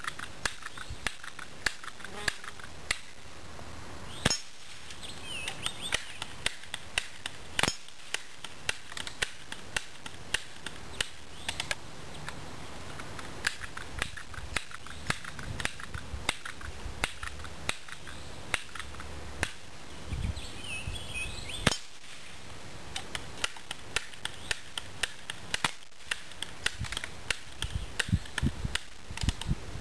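Crosman 1377 Pumpmaster Classic multi-pump pellet pistols firing at a steel spinner target: sharp cap-gun-like pops several seconds apart, loudest about four, eight and twenty-two seconds in, among many fainter ticks and clicks.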